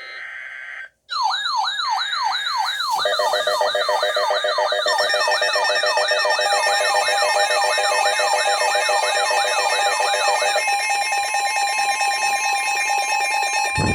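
Electronic emergency alert tones ahead of a severe thunderstorm warning. After a short buzzy burst, a siren tone sweeps down in pitch over and over, about twice a second, under a growing stack of steady high beeping tones. About ten seconds in the sweeps stop and the steady tones carry on.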